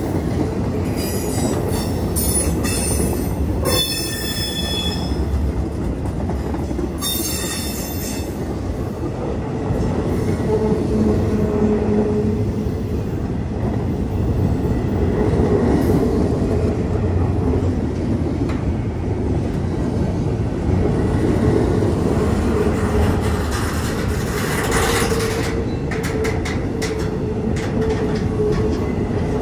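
Intermodal freight train's double-stack well cars and trailer flatcars rolling past: a steady rumble of wheels on rail, with high wheel squeal through the first several seconds and a run of sharp clacks near the end.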